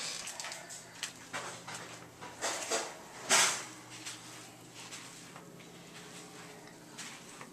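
Things being handled and shifted inside a cupboard: scattered light clicks and knocks with short rustling scuffs, the loudest about three and a half seconds in.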